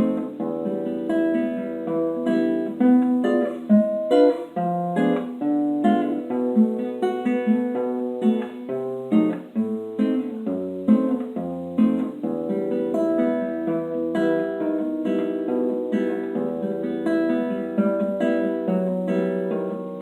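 Solo classical guitar playing a flowing piece of fingerpicked notes over held bass notes.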